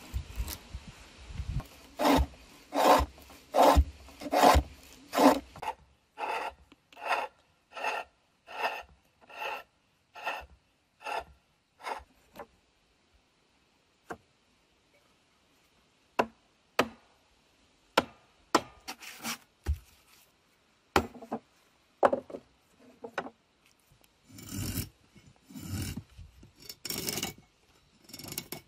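A hand tool scraping back and forth over wood in rhythmic strokes, about two a second, growing fainter after several seconds. Then comes a pause broken by a few sharp knocks, and another run of strokes near the end.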